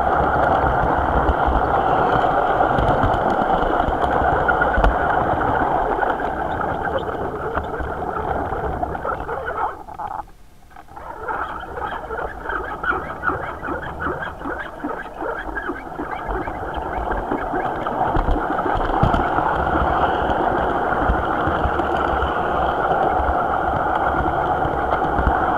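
HO-scale model train running along the track, heard from a small camera riding on it: a steady whirring rattle of motor and wheels on rail. It drops away briefly about ten seconds in, then picks back up.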